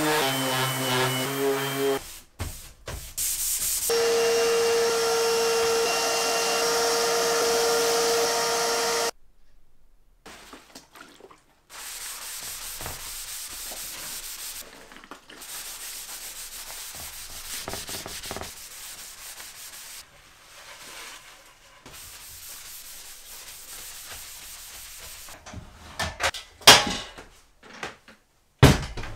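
DeWalt random orbital sander running on a veneered wood panel with a steady motor hum, in two stretches of a few seconds. It is followed by a long, quieter rubbing of a cloth wiping the sanded panel down with white spirit, and a few sharp knocks near the end.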